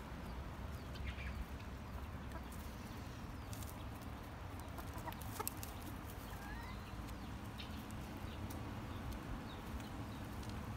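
Sumatra chickens foraging, with a few faint, scattered clucks and short calls over a steady low background rumble.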